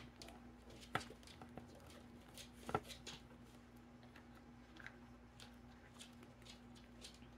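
Near silence with a low steady hum and a few faint clicks, the clearest about one second and nearly three seconds in.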